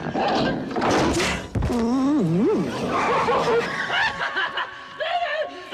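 Wordless cries and yelps of people fleeing, with a thump about a second and a half in followed by a cry that wavers up and down in pitch.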